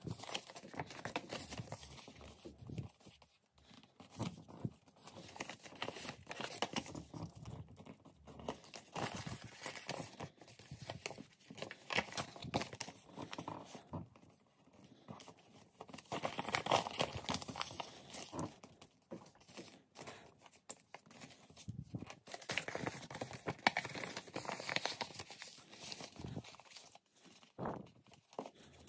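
A sheet of printer paper being folded and creased by hand on a wooden table: irregular rustling and crinkling with many short, sharp clicks as the creases are pressed in.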